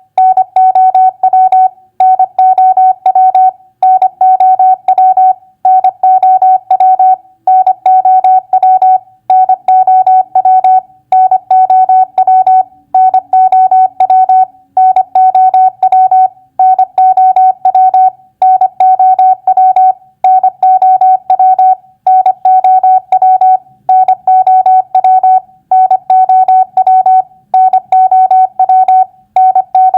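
Morse code tone keyed at 25 words per minute, spelling out common three-letter words. It is a single steady beep pitch broken into fast dits and dahs, with a short pause after each word, about one word every two seconds.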